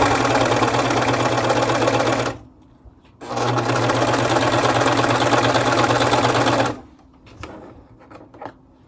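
Singer ProFinish serger running at speed, stitching and trimming a fabric edge with its knife. It runs for about two seconds, stops briefly, runs again for about three and a half seconds, then stops, followed by a few faint clicks.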